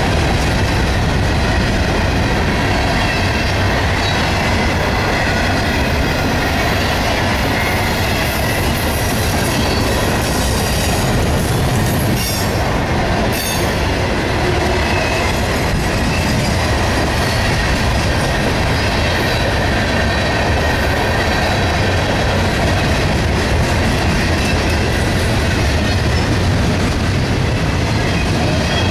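Freight train of Herzog open-top hopper cars rolling steadily past: continuous rumble of steel wheels on the rails, with a faint high squeal from the wheels.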